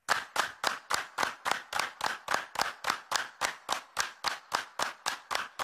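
A steady train of clap-like percussive hits, a little under four a second, each trailing off in heavy reverb: the opening beat of a slowed-and-reverb song edit.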